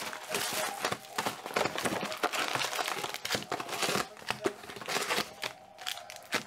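Plastic shrink wrap crinkling and tearing as a 2019 Donruss football card box is unwrapped, then foil card packs rustling as they are pulled from the box and laid down: a dense run of rapid crackles.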